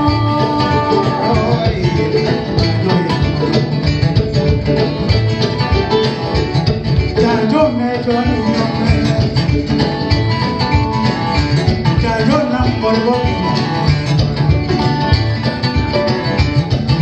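Live acoustic band playing a bluegrass-meets-West-African tune: busy plucked-string lines from guitar and kamale ngoni over a steady low rhythmic pulse.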